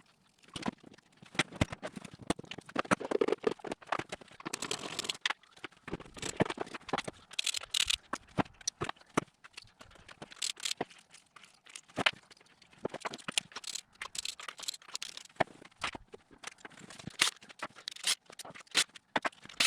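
Irregular clicks, knocks and plastic rustling of hand tools and engine parts being handled, as the air intake, coil packs and spark plugs come off a Suzuki Alto's 1.1 16-valve engine.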